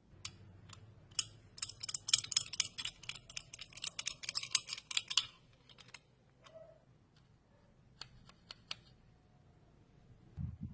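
A dense run of rapid, sharp clicks lasting about three and a half seconds, with a few isolated clicks before it and a short cluster of clicks later.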